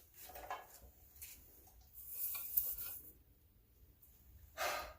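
A person breathing, with a short audible exhale near the end, over a few faint clicks and rubs of handling.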